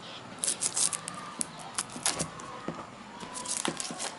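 Shrink-wrapped cardboard phone box being handled, its plastic film crinkling in a scatter of irregular sharp crackles and clicks.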